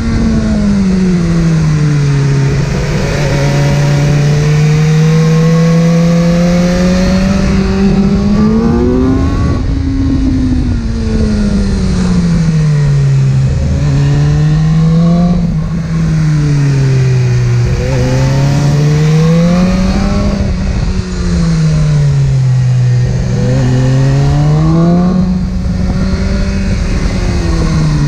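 Inline-four sport motorcycle engine heard on board while riding. Its pitch repeatedly slides down as the bike slows and climbs again as it accelerates, about five times over the stretch.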